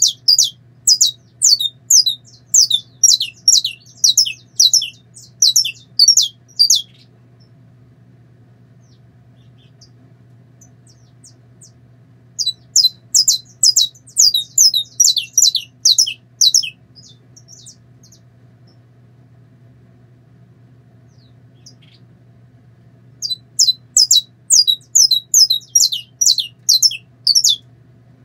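Caged saffron finch singing in three bouts of sharp, rapidly repeated downward-sweeping notes, about two to three a second, with pauses of several seconds between bouts.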